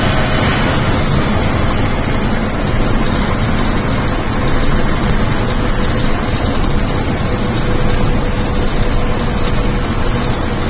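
Bus engine and road noise heard from inside the driver's cab while cruising at a steady speed on a highway: an even, unbroken rumble.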